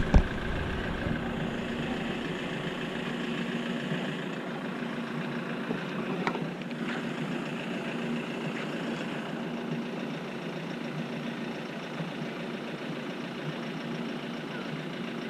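A brief sharp swish right at the start as a surf-casting rod finishes its cast, then a steady engine-like hum.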